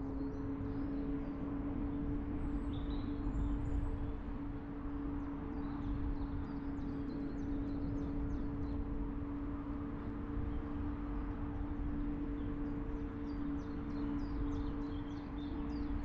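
Car driving at steady speed: a low road and engine rumble with a constant low hum. Birds chirp at intervals over it, most thickly near the end.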